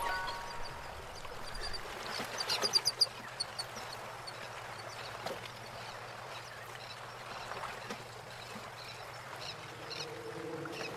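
Paintbrush rinsed in a glass jar of water: soft swishing, with a quick run of light clicks about two to three seconds in.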